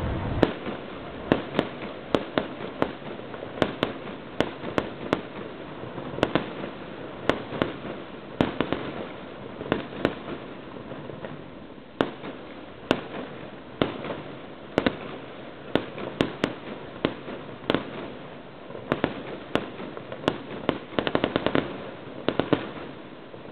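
Aerial fireworks going off: an irregular string of sharp bangs and pops, about two a second, with a quick rattle of crackles near the end.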